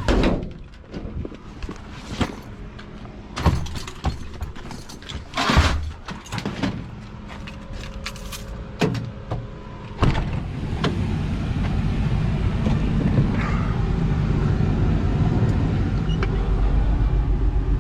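A scatter of knocks and clatter. About ten seconds in, a steady low mechanical rumble starts suddenly and runs on, growing slightly louder.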